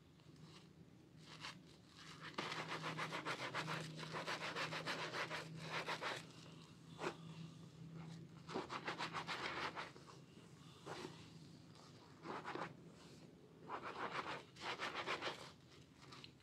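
Foam-soaked sponges squeezed and rubbed through thick lather of soaked Purbasari Red antibacterial bar soap, giving a wet, fine crackling squish. It comes in strokes: a long run of scrubbing in the first half, then several shorter squeezes with short pauses between.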